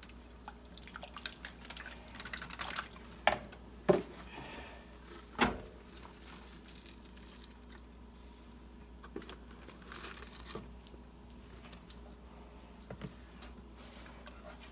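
Wire whisk stirring thick cheese sauce in a saucepan: soft wet squishing and sloshing, broken by three sharp knocks between about three and six seconds in.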